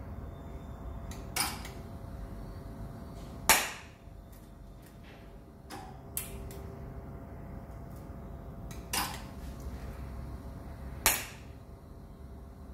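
Capacitor-discharge welding machine firing test discharges: six sharp cracks at uneven intervals, the loudest about three and a half seconds in and another strong one near the end.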